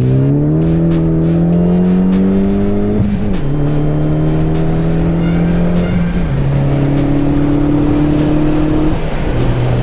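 Ford Focus ST engine through a 3-inch Roush cat-back exhaust, accelerating through the gears. The note climbs for about three seconds, then drops at a gear change, and drops again about six and nine seconds in.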